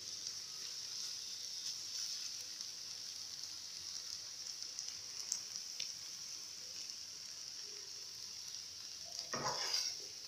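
Scrambled eggs frying in margarine in a metal pan over low heat, with a quiet, steady, high sizzle. Near the end a spatula scrapes across the pan as the eggs are turned.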